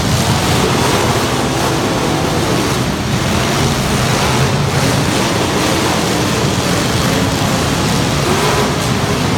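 Truck engines running loud, heard as a steady, dense rumble with a faint wavering engine tone near the end.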